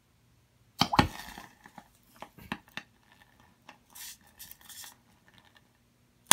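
Potassium reacting violently with water in a glass measuring cup: a sudden sharp pop about a second in, then irregular fizzing and crackling sputters that die away after a few seconds, the sound of the metal's deflagration as it burns on the water.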